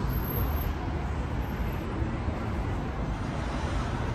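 Steady city street traffic noise: a low, even rumble of passing vehicles.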